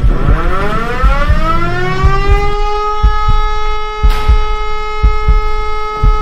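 Fire brigade alarm siren winding up from low to full pitch over about two and a half seconds, then holding a steady tone: the call-out signal summoning volunteer firefighters to a fire. Low, irregular thumps sound underneath.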